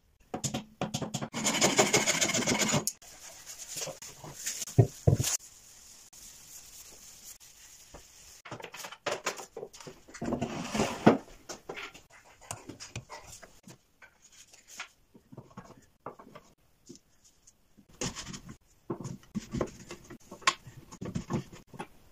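Wooden parts knocking, clicking and rubbing as a wooden drawing table and its pieces are handled, slid and adjusted by hand. A longer stretch of scraping or rubbing comes about a second in, and another around ten seconds in.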